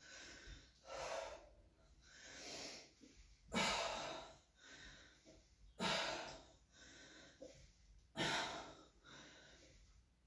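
A woman breathing heavily through a set of crunches, with a forceful breath about every two seconds.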